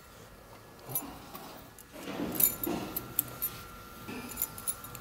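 Metal parts clinking and knocking as a main bearing cap with its bearing shell is handled and lifted off the crankshaft of a stripped diesel engine block: scattered sharp clicks with a bright ring, bunched about two seconds in and near the end.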